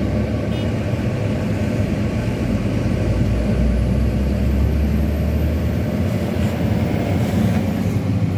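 Truck engine running as the truck drives along, heard from inside the cab: a steady low drone with road noise over it.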